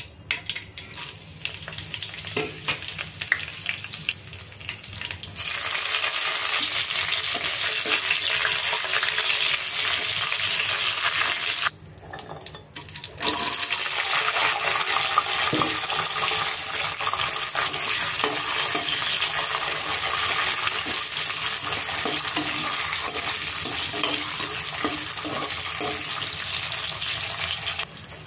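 Seeds crackling and popping in hot oil in a pan, then, about five seconds in, a loud steady sizzle as dried red chillies, curry leaves and shallots fry. The sizzle drops out briefly around the middle and comes back, with a spatula stirring the pan.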